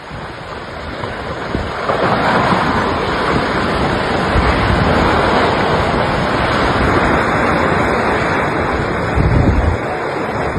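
Loud, steady rushing noise of wind buffeting the microphone, building over the first two seconds, with gusty low rumbles twice.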